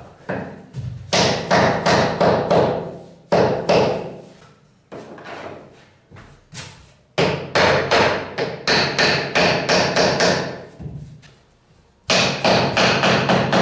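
Hammer knocking laminate boards to drive their click-lock joints together, in quick runs of sharp strikes with short pauses between them.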